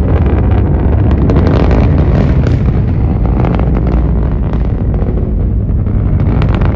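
Atlas V rocket engines during ascent: a loud, steady low rumble shot through with dense crackling.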